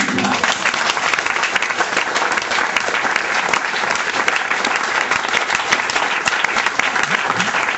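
Audience applauding: many hands clapping in a dense, steady patter that starts all at once as the speech ends.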